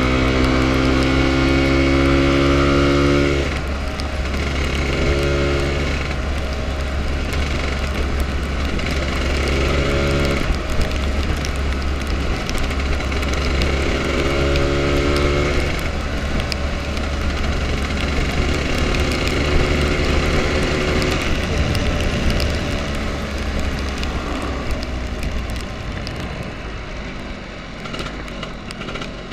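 Lambretta scooter's two-stroke engine running at road speed, under heavy wind noise on the handlebar microphone. Its steady engine note stands out clearly for the first few seconds and again in short stretches, and the whole sound eases off near the end.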